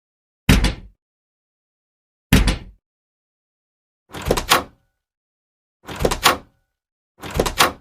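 A door shut five separate times with silence in between: two single thuds, then three shuts that each come in two quick hits about half a second apart.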